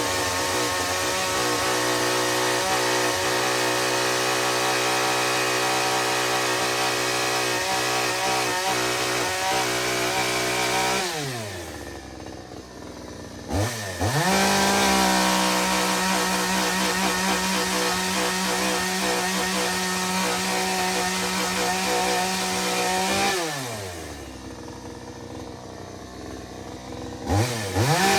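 Lidl Parkside two-stroke petrol chainsaw running at full throttle. Its revs fall away to idle twice, about eleven seconds in and again about twenty-three seconds in, and climb back to full speed after a few seconds each time.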